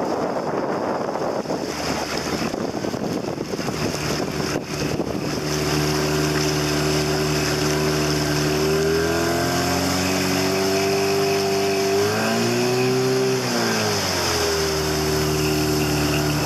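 Wind and water noise at first. Then, from about five seconds in, a 1999 Mariner 15 hp short-shaft outboard runs steadily under way, pushing the small dory along. Its pitch rises and falls back once about three-quarters of the way through.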